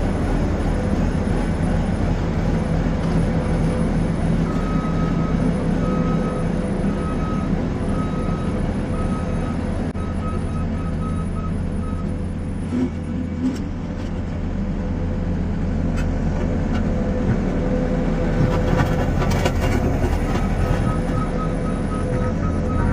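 New Holland C232 compact track loader's diesel engine running steadily as it works a compacting roller over asphalt millings. Its reverse alarm beeps at a steady rate for several seconds, starting about five seconds in, and again near the end.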